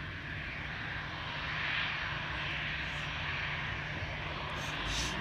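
Twin-engine jet airliner's turbofan engines running steadily at a distance as it taxis before takeoff: a continuous jet hiss over a low rumble.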